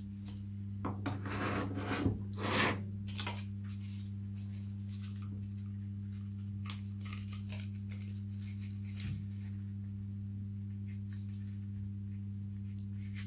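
Light rustling, taps and clicks from small model parts being handled at a workbench, mostly in the first three seconds, then a few faint clicks. A steady low hum runs underneath.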